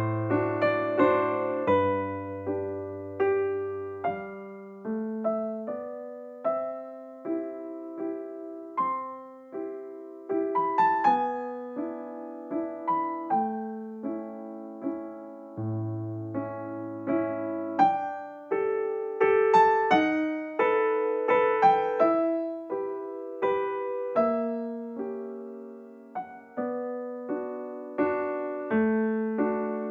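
Background music: a gentle electric piano melody with bass notes, notes struck one after another and fading.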